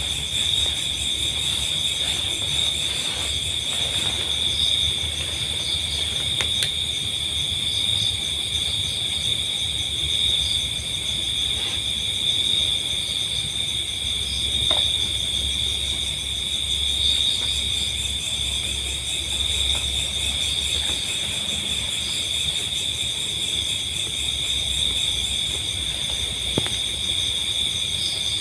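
Dense insect chorus: several steady high trills at different pitches, unbroken throughout, over a low rumble.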